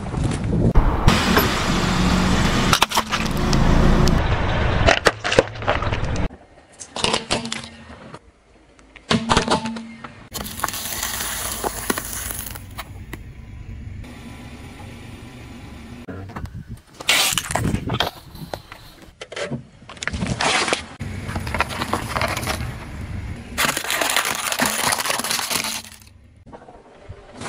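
A car tyre rolling slowly over objects and crushing them, among them a packet of biscuits and aluminium drink cans: a string of separate crunching and cracking bursts with abrupt cuts between them, and low tyre and car noise in between.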